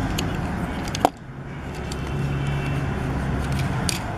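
Fingers handling a plastic toy fire truck, with one sharp plastic click about a second in and faint ticks, over a steady low background hum.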